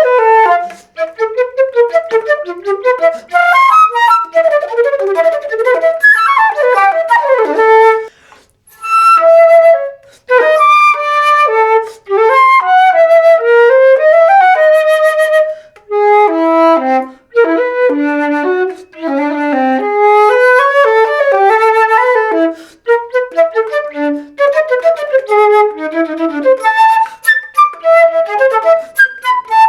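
Solo flute playing a contemporary concert piece: quick, leaping runs of short notes with held notes in between and brief breaks, one about eight seconds in.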